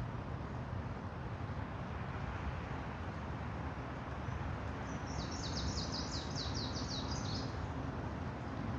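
Forest ambience: a steady low background hiss and rumble. About five seconds in, a songbird sings a quick trill of roughly a dozen high, downward-sliding notes lasting about two seconds.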